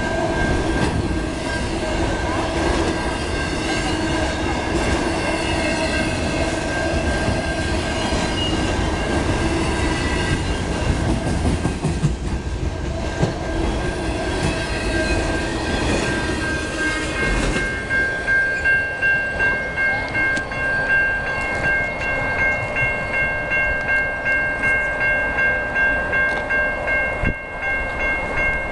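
Freight train of autorack cars rolling past over a grade crossing, with steady wheel and car rumble. About two-thirds of the way through, the rumble drops away as the last cars clear, leaving the railroad crossing bell ringing in an even, pulsing rhythm.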